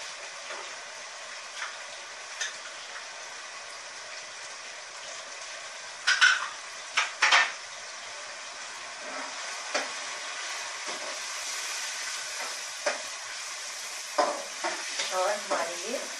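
Minced meat (keema) frying in hot oil in a metal karahi, a steady sizzle. A perforated metal spoon scrapes and clinks against the pan in a few bursts about six to seven seconds in, and again in a quick run near the end, as the mince is stirred.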